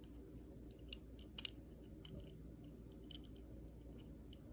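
A few faint clicks and taps of fingers handling a small die-cast toy car, the loudest a close pair about a second and a half in, over a low room hum.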